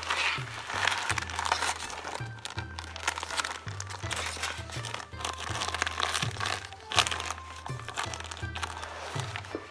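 Thin plastic packaging crinkling and rustling in irregular handfuls as small miniature toy pieces are unwrapped, over background music with a steady low bass line.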